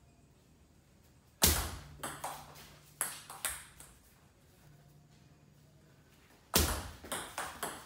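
Table tennis rallies: a celluloid ball clicking off rackets and the table. A first rally starts about a second and a half in with a loud serve and runs for about two seconds at a few hits a second. A second rally starts near the end with another loud serve.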